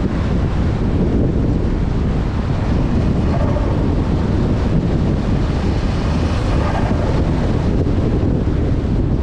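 Mk6 Volkswagen Golf R driving, a steady low rumble of engine and road noise heavily mixed with wind noise on the microphone.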